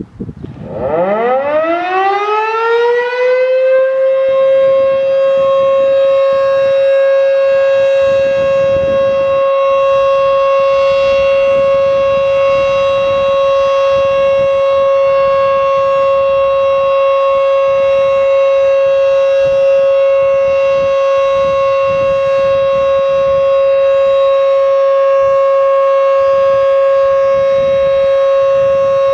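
Federal Sign & Signal Model 5 electromechanical siren winding up from a standstill over about four seconds, then holding a loud, steady single alert tone with no wail.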